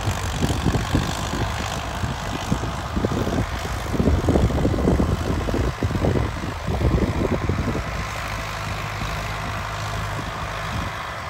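Mahindra Arjun 605 tractor's four-cylinder diesel engine running steadily under load while pulling a maize planter across a field, with an uneven low rumble that grows louder from about four to seven seconds in.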